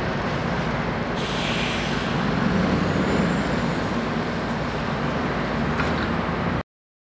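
Scania 164L 580's V8 diesel engine running as the truck pulls away, with a brief hiss of air about a second in. The sound cuts off abruptly near the end.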